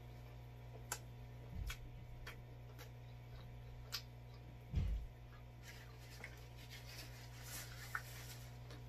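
Close-miked chewing of pizza: scattered, irregular wet mouth clicks over a steady low hum, with two short low thumps, the louder about five seconds in. Near the end comes a bite into pizza crust.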